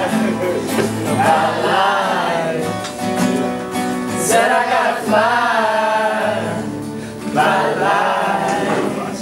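Live singing of a soul-style song: long, wavering sung phrases with runs of bending pitch, over a steady musical accompaniment.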